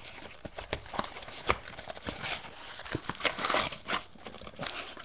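Cardboard trading-card hanger box being opened and its wrapped card packs slid out: a string of light cardboard taps and knocks, with a spell of crinkly wrapper rustling about three and a half seconds in.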